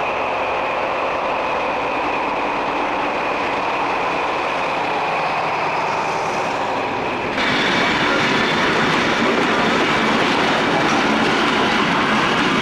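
A diesel locomotive runs past with a steady engine drone, followed by passenger coaches rolling by. About seven seconds in, the sound jumps suddenly louder and brighter to the noise of the coach wheels running over the rails.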